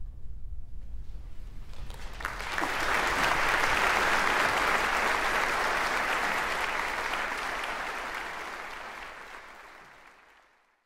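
Concert audience applauding: the clapping breaks out about two seconds in, swells, then slowly dies away and cuts off near the end.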